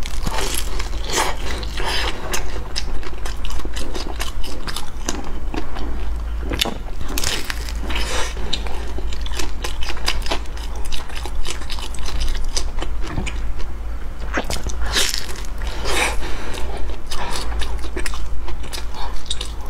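Close-miked eating: bites and chewing of a soft purple sweet potato bread filled with molten chocolate, with irregular crackly mouth sounds all through.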